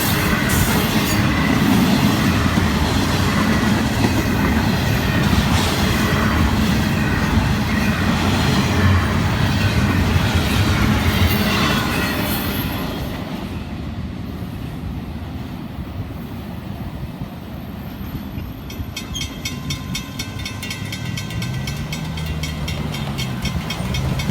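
Freight cars of a long intermodal train rolling past on the rails, with clatter and some wheel squeal, fading away about halfway through. Near the end a fast, regular high-pitched ticking and a road vehicle passing can be heard.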